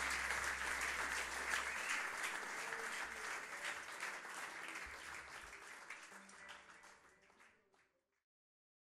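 Live concert audience applauding at the end of a song, the clapping slowly fading out until it stops about eight seconds in.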